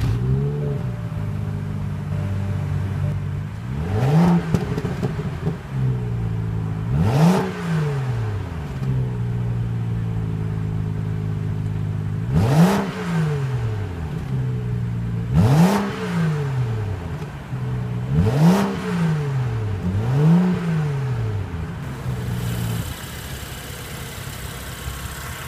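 BMW 435i's twin-turbo 3.0-litre inline-six, heard at the exhaust, catching with a short flare and then idling, blipped six times so the revs rise and fall back to idle. Near the end it settles to a quieter idle.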